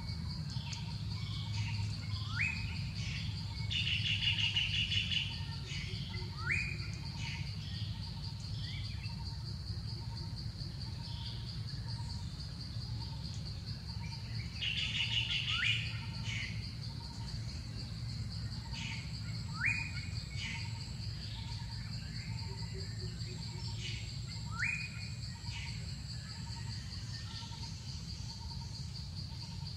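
Forest ambience: a steady high insect drone, with a bird giving a short, quickly rising call about five times and a couple of brief buzzy bursts, over a low rumble.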